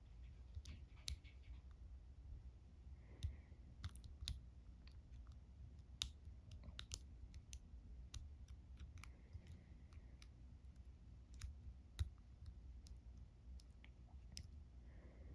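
Faint, irregular small metallic clicks and ticks of a dimple-lock pick working inside the keyway of an Ultion 3-star dimple lock, probing the pins, with a few sharper clicks scattered through.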